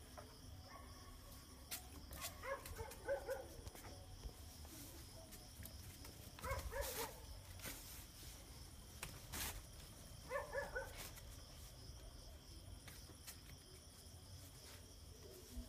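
A puppy giving short, high-pitched barks in three brief bursts a few seconds apart.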